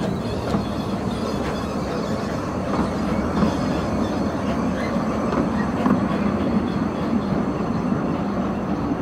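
Narrow-gauge wooden passenger coaches rolling past at low speed, their wheels rumbling steadily and clicking over the rail joints, with a few brief wheel squeals.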